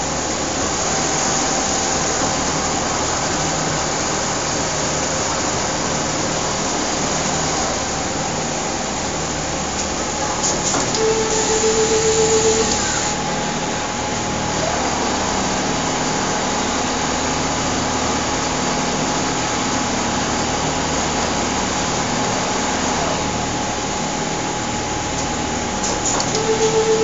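Richpeace automatic pattern sewing machine running and stitching a quilted coat panel, a steady mechanical whir with machinery hum around it. Twice it grows louder for about a second and a half, with an added steady tone and a high hiss.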